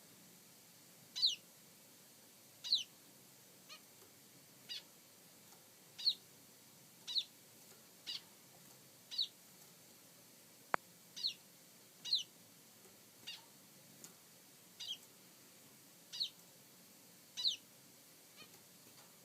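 A bird calling over and over: a short, high call that falls in pitch, repeated roughly once a second. A single sharp click comes about two-thirds of the way through.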